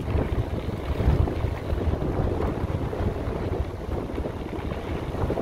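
Wind buffeting the microphone over the rumble and rattle of bicycle tyres rolling fast on a gravel road downhill.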